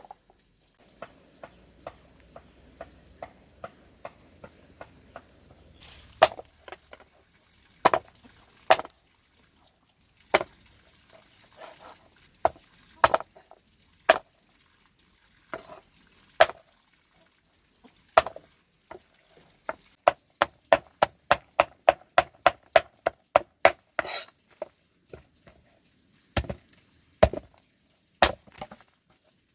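Repeated sharp chopping strikes, spaced irregularly at first, then a quick run of about three a second about two-thirds of the way through.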